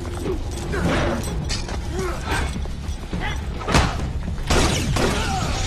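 Fight-scene sound effects: a series of sharp punch and impact hits with short grunts, over a low, steady music bed. The loudest hit comes about four seconds in.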